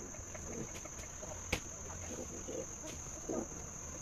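Steady high-pitched drone of insects, with a few faint clicks on top.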